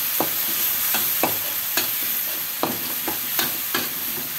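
A metal spatula scrapes and knocks against a wok while stir-frying a ground chili and tomato paste in hot oil, over a steady sizzle. There are about nine sharp clacks at uneven intervals.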